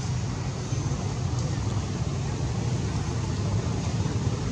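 Steady low rumbling noise with an even hiss over it, unchanging throughout.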